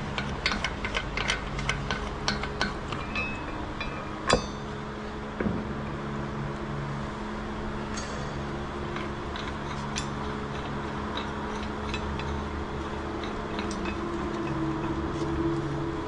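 Sharp metallic clicks and clinks from the steel clamp hardware of a pipe plug being handled and adjusted. A quick run of clicks comes in the first few seconds and a single louder clank about four seconds in, then scattered lighter clicks. A steady low machinery hum runs underneath.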